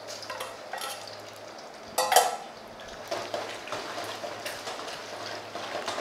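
Diced chicken frying in hot oil in a wok, sizzling steadily while a metal ladle stirs it, with small scrapes and clinks. About two seconds in there is one loud, sharp knock, the loudest moment.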